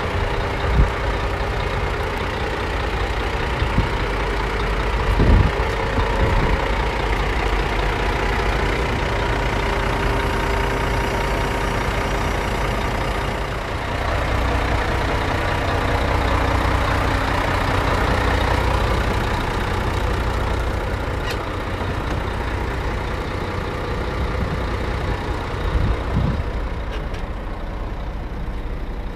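Scania R124 400's straight-six diesel engine idling steadily, with a few dull thumps of handling about a second in, about five seconds in and near the end.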